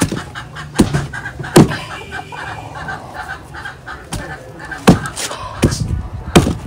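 Wooden pestle pounding boiled plantain in a wooden mortar for fufu: heavy thuds about one every three quarters of a second, pausing for a couple of seconds in the middle.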